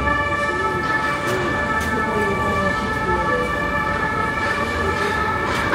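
A siren sounding steadily in the street, several held tones together without rising or falling, over continuous traffic and street noise with faint voices.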